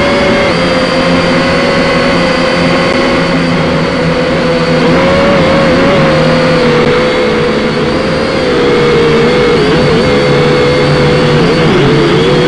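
Syma X5C quadcopter's small electric motors and propellers whining, heard from its own onboard microphone. The whine holds a steady pitch, then wobbles up and down in the second half as the throttle is adjusted in flight.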